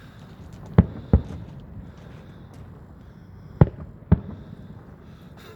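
Fireworks shells bursting in the air: four sharp bangs in two close pairs, one pair about a second in and the other past the middle.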